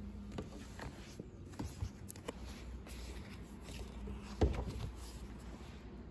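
A paperback book being picked up and opened over newspaper on a wooden table: soft paper rustles and small clicks, with one louder knock about four and a half seconds in.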